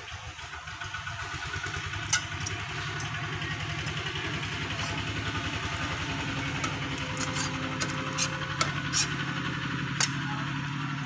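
An engine idling steadily with a low rapid pulse, growing slightly louder over the first few seconds. Several sharp metallic clicks from the knife and tongs knocking against the steel pot sound over it.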